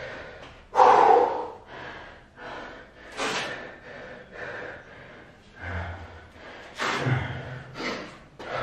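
A man breathing hard after a set of burpees, deep gasping breaths about once a second, the loudest about a second in.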